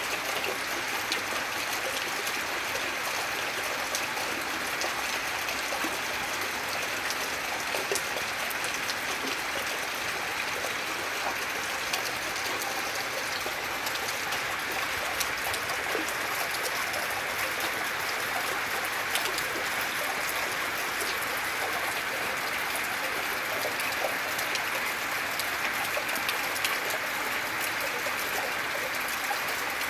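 Steady, gentle rain falling constantly, a continuous hiss scattered with small drop ticks.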